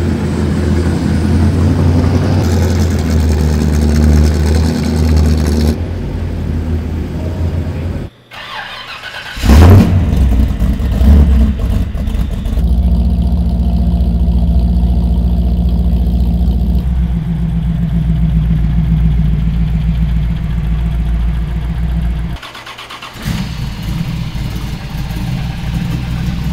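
Hot rod roadster engines idling with a deep, steady tone, broken into several clips by abrupt cuts, with a loud rev about ten seconds in and a smaller one soon after.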